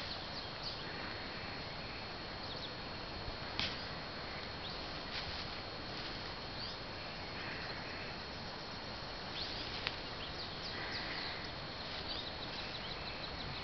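Outdoor ambience: scattered short bird chirps over a steady high insect tone and a hiss of background noise.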